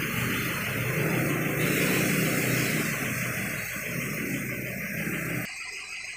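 Steady mechanical running noise with a hiss, which drops away suddenly about five and a half seconds in.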